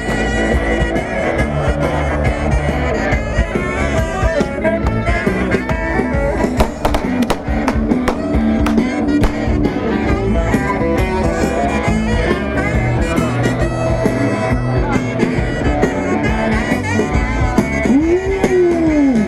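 Rock band playing the instrumental opening of a song live, heard from within the audience: drums striking steadily under electric guitars and bass, with one note bending up and back down near the end.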